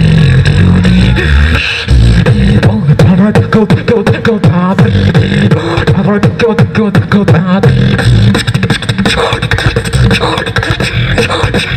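Beatboxing into a handheld microphone: rapid, dense mouth percussion with heavy bass kicks, snares and clicks, mixed with wavering pitched vocal lines.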